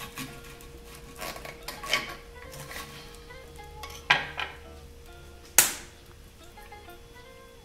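Knife and fork cutting a crisp-fried piece of pork with crackling skin (pururuca) on a wooden board: scattered clicks, scrapes and crunches of the blade through the crust. The loudest, a single sharp crack, comes about five and a half seconds in.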